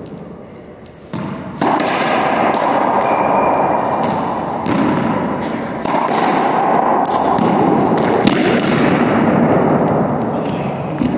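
Racquetball rally: a string of sharp bangs, about one a second, as the hollow rubber ball is struck by racquets and rebounds off the court walls and floor. The bangs start about a second and a half in, each ringing out in the echo of the enclosed court.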